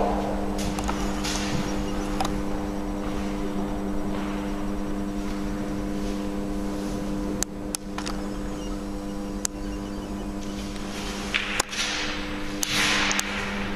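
A steady machine-like hum made of several held low tones, with a few sharp clicks and brief hissy rushes, the clearest near the end.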